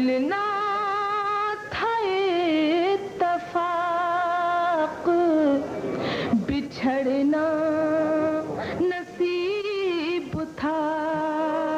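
A woman singing lines of an Urdu ghazal in tarannum, the melodic style of mushaira recitation. She holds long notes with a wavering vibrato, with several short breaks between phrases.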